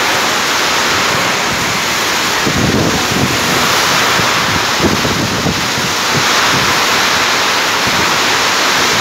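Torrential rain pouring down onto a paved yard, a loud, steady hiss. Wind gusts buffet the microphone with a low rumble for a few seconds in the middle.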